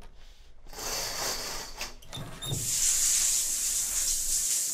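A shower is turned on: a short rush of noise about a second in, then a steady hiss of spraying water that starts suddenly about two and a half seconds in.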